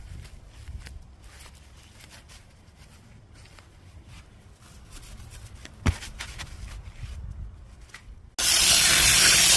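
Faint rubbing and handling noises with one sharp click about six seconds in, then a loud, steady hiss starts abruptly near the end.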